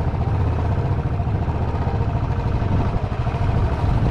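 A vehicle engine running steadily while travelling, a continuous low drone with road and wind noise over it.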